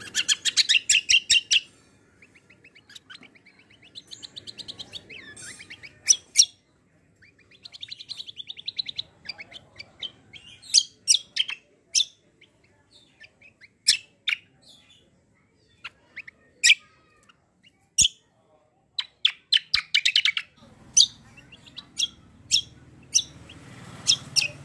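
Caged cucak kombo songbird singing: fast high trilled phrases broken up by many sharp single chirps.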